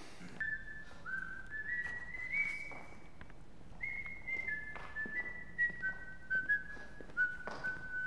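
A person whistling a short tune: a run of held notes that climbs over the first few seconds, then steps back down and ends on a longer, lower note.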